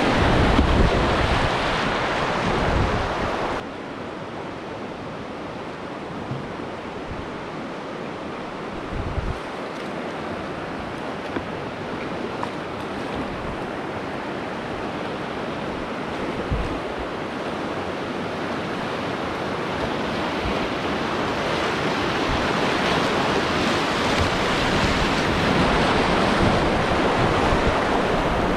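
River rapids rushing and splashing close by, loud at first. About three and a half seconds in it drops suddenly to a steadier rush of moving water, which grows louder again toward the end.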